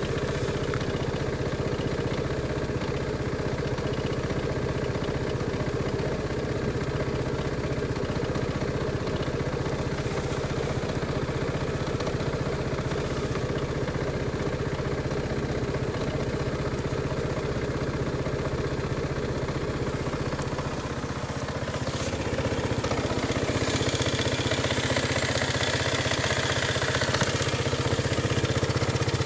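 Aprilia Sportcity 250 i.e. scooter's fuel-injected single-cylinder engine idling steadily in sub-zero cold. It grows a little louder and hissier in the last few seconds.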